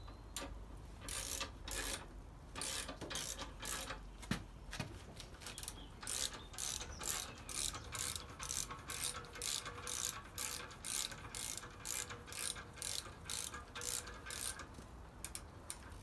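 Ratchet clicking as the screw of a motorcycle scissor lift is wound to lower the bike. There are a few irregular strokes at first, then a steady run of about two to three strokes a second that stops shortly before the end.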